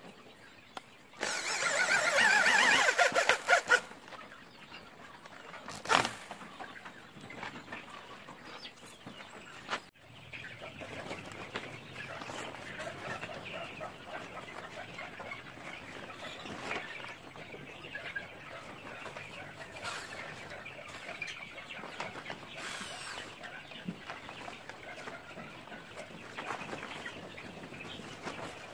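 Chickens calling and clucking steadily in the background. About a second in there is a loud rustling, rattling burst of handling noise lasting some two and a half seconds, and a sharp click comes near six seconds.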